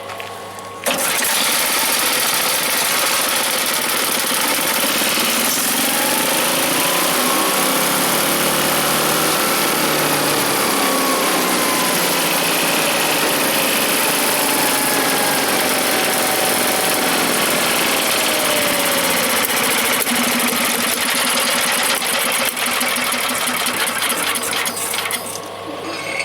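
The 1983 Mighty Mac chipper shredder's small gas engine catches suddenly about a second in and runs fast and steady, louder than it is meant to run, because a piece of its governor linkage has been left unhooked. Its level drops near the end.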